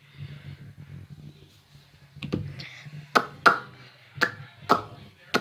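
A low steady hum, then a string of about six short, sharp clicks, the first about two seconds in, roughly half a second apart.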